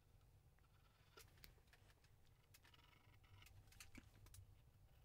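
Near silence with faint scattered ticks and light scratching of a graphite pencil on drawing paper as it shades.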